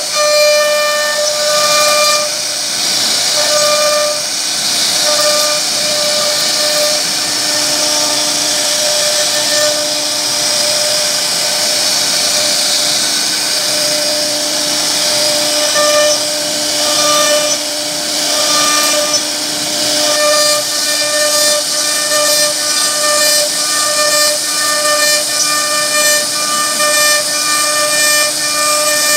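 CNC router spindle whining at a steady high pitch as its small bit carves relief patterns into a wood panel, with a constant hiss of cutting over it. The whine drops out briefly several times and comes straight back.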